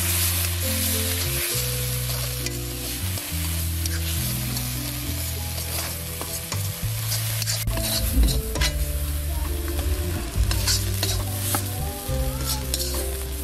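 Masala paste sizzling in a hot iron kadhai with water just added, stirred and scraped with a metal spatula. Sharp scrapes of metal on iron stand out around eight and ten seconds in.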